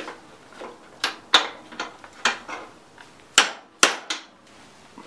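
Hammer blows on a steel socket extension used as a punch to drive a stuck pin out of a Craftsman self-propelled mower's drive axle: about eight sharp metal-on-metal taps, irregularly spaced, the loudest a pair about three and a half seconds in. The pin is held fast by a groove worn into it by the bearing.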